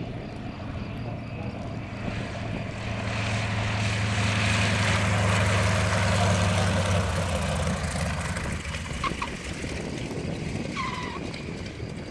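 Light propeller aircraft landing: a steady engine drone swells to its loudest in the middle, then eases off. Two short tyre squeals follow near the end as the wheels touch the runway.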